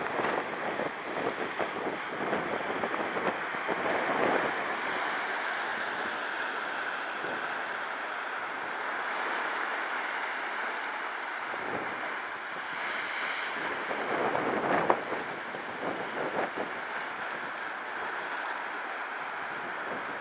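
Sea surf breaking and washing over the rocks at the foot of a cliff, swelling louder a few times, with wind buffeting the microphone.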